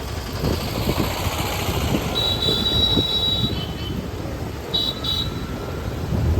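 Steady road rumble from riding in traffic, with wind buffeting the microphone. A thin high tone sounds for about a second near the middle and again briefly later on.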